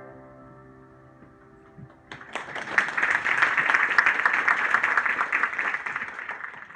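The last chord of piano and sanshin dies away. About two seconds in, the audience breaks into applause, which stays full and then thins near the end.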